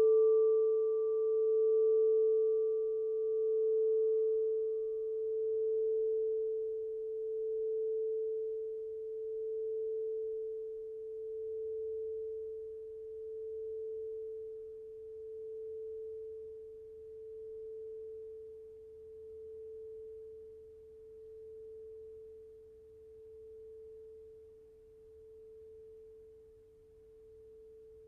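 A 6-inch crystal singing bowl tuned to A (a Crystal Tones ULF Soft Gong) rings out after being struck, one clear tone slowly fading away. Its higher overtones die out within the first several seconds, and the tone wavers in loudness about once every two seconds.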